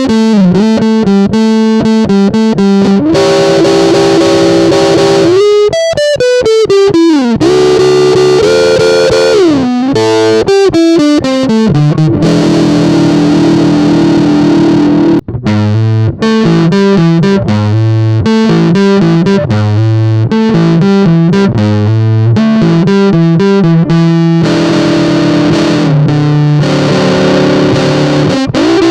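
Electric guitar (Squier Vintage Modified Jazzmaster) through a Big Muff–style fuzz pedal set to low gain, about 9 o'clock, playing rhythm-and-blues chords and single-note licks with string bends. It stops briefly about halfway through.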